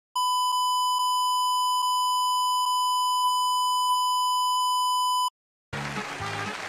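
Steady high-pitched broadcast test tone, the beep played under a 'technical difficulties, please stand by' card, held for about five seconds and cut off sharply. After a short silent gap, music starts near the end.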